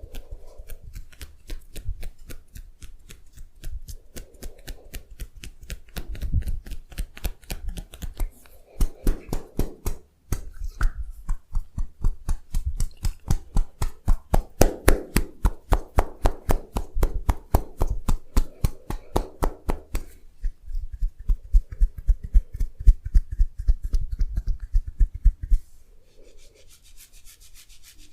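Hands massaging a person's body: skin rubbing and long runs of fast, rhythmic tapping strokes with soft thumps, pausing briefly about ten seconds in and dying away near the end.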